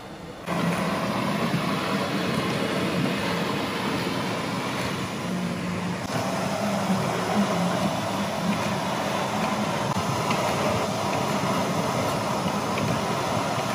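Tennant T7AMR robotic ride-on floor scrubber running: a steady mechanical drone from its scrub-brush and vacuum motors, with a low hum under it, starting about half a second in.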